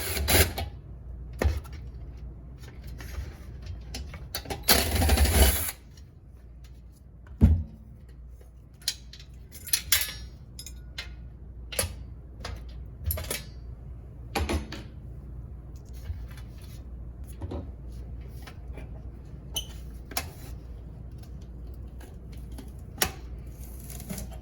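Scattered clicks, knocks and clatter of hand tools and plastic parts being handled while a shop vacuum is taken apart. One louder burst of noise, lasting about a second, comes about five seconds in.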